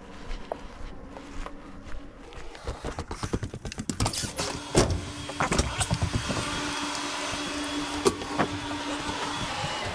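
Quick clicks and knocks of hard equipment being handled, followed by a steady hum for about the last five seconds.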